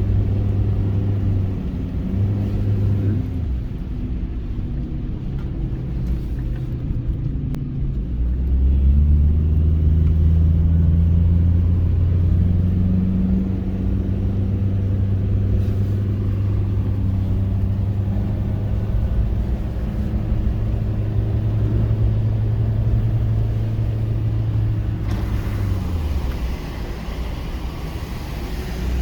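Mitsubishi Pajero iO's GDI four-cylinder engine and road noise heard from inside the cabin while driving. The engine note rises about eight seconds in and holds. Near the end it drops away as a hiss of road noise comes up.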